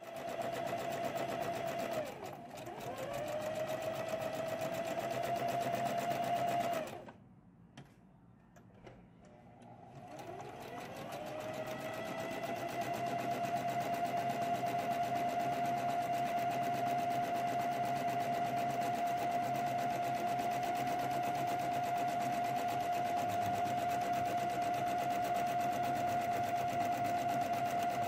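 Domestic electric sewing machine stitching a narrow hem along the edge of a sheer fabric ruffle: a steady motor whine with rapid needle strokes. It slows briefly about two seconds in and stops for about three seconds around seven seconds in, then speeds back up and runs steadily.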